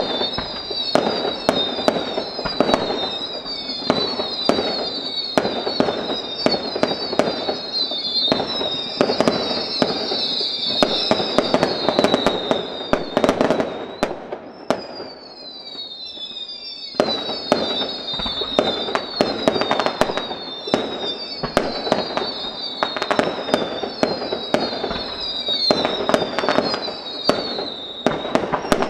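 Fireworks display: a rapid barrage of bangs and crackling shell bursts, with a high falling tone repeating over and over above them. The barrage thins out for a few seconds around the middle, then picks up again.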